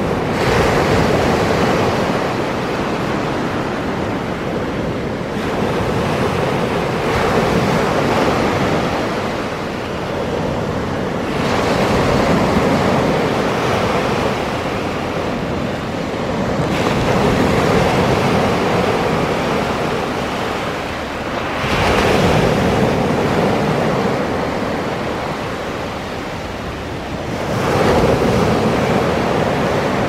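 Small sea waves breaking and washing up on a sandy shore: a steady rush of surf that swells with each breaking wave, about every five to six seconds.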